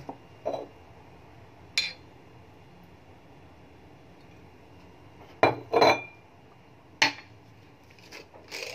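Glass bottles and a small glass shot glass knocking and clinking on a hard countertop while a soju shot is mixed. A few light taps come early on, then a loud pair of knocks about five and a half seconds in and another sharp knock about a second later, with a few softer knocks near the end.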